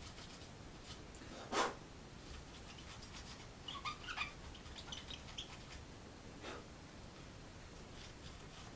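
Faint rubbing of toilet paper wiping isopropyl alcohol over a graphics card's bare GPU chip to clear stubborn old thermal-paste gunk. One louder wipe comes about one and a half seconds in, and there are a few short squeaks around the middle.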